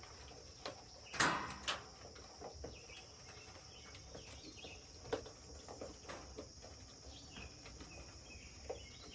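Evening insect chorus: a faint, steady high chirring, with a few soft knocks and rustles scattered through it, the loudest about a second in.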